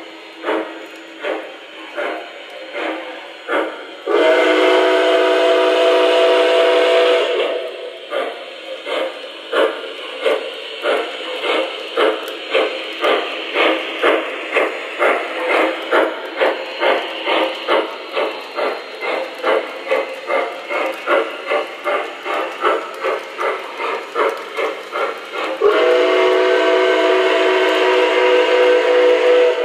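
The sound system of an MTH model L&N Berkshire steam locomotive, playing steady steam chuffs that quicken from about one and a half to about three a second. Two long whistle blasts sound over them, one about four seconds in and one near the end.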